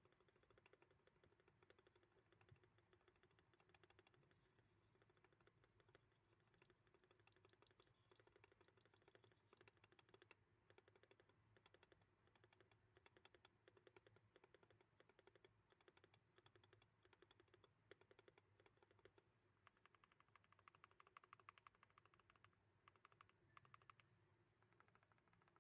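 Faint, fast typing on a mechanical keyboard, a quick run of key clicks, busiest near the end.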